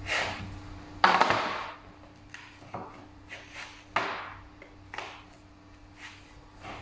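Homemade play dough being kneaded by hand on a plastic tray: a run of irregular dull thuds and slaps as the dough is pressed and pushed down, about one a second, the loudest about a second in, over a faint steady hum.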